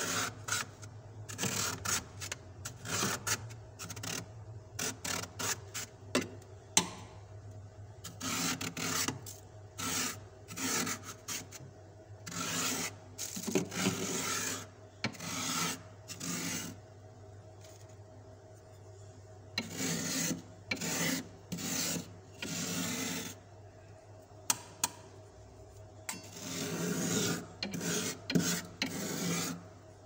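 Metal spoon scraping fresh, fluffy frost off the inside wall of a freezer compartment in short, irregular strokes with brief pauses, over a faint steady low hum.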